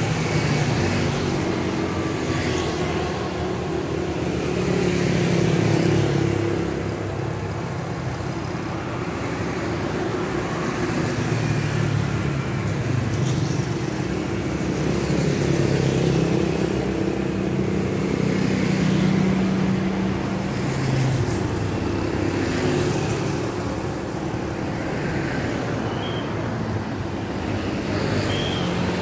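Street traffic, mostly motorcycles with an occasional car, passing one after another over a steady traffic hum; the sound swells and fades as each vehicle goes by.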